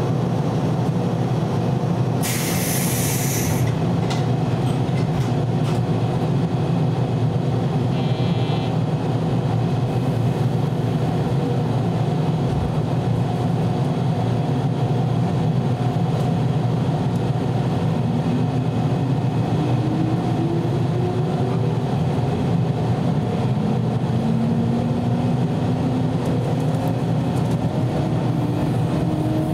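Steady running rumble of a 413-series electric multiple unit, heard from its motor car's cab, with a brief hiss about two seconds in. Over the last ten seconds a motor whine rises steadily in pitch as the train gathers speed.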